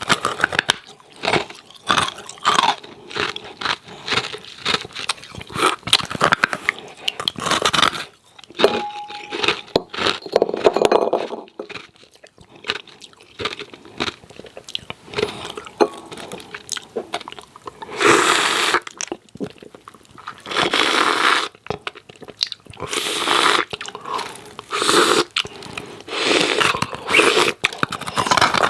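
Hard ice cubes crunched and chewed close to the microphone: many sharp, irregular cracks as the ice breaks between the teeth, with longer grinding chews in the second half.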